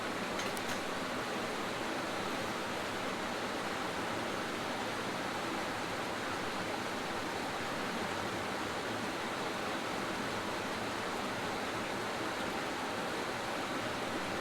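Creek water rushing steadily, with a couple of faint ticks about half a second in.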